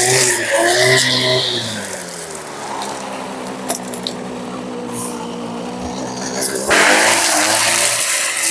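Two-stroke brushcutter fitted with a chainsaw-chain trimmer head. For about two seconds the engine pitch rises and falls as it works, then it settles to a quieter steady idle. About two-thirds of the way in it is opened up again to a loud, steady, full-throttle whir.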